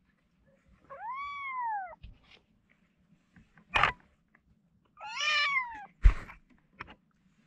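Kittens meowing: two drawn-out meows, one about a second in and another about five seconds in, each rising and then falling in pitch. A few sharp knocks fall between them, the loudest just after the second meow.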